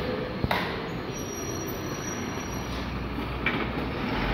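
MAN TGM 26.340 recycling truck's six-cylinder diesel engine running as the truck pulls up slowly, with a sharp knock about half a second in and the low rumble swelling near the end.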